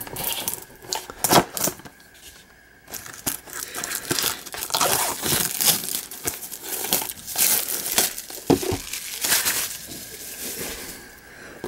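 Plastic shrink wrap being torn and crinkled off a sealed trading-card hobby box, in a run of sharp crackling rips with a short lull about two seconds in.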